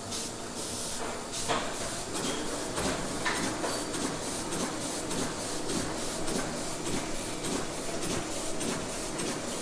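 Two-color sheet-fed offset printing press running at speed: a fast, even clatter of sheets being fed through, over a steady hiss.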